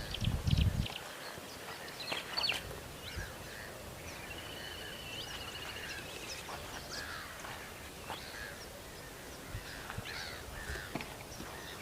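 Several wild birds calling over one another, with short chirps and calls and a rapid trill of notes about four seconds in. A brief low rumble near the start, like wind on the microphone.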